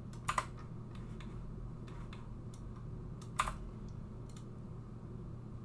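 Scattered sharp clicks of a computer keyboard and mouse as the Delete key is pressed and entities are clicked on. The loudest are a quick pair just after the start and a single click about three and a half seconds in, with fainter clicks between, over a steady low electrical hum.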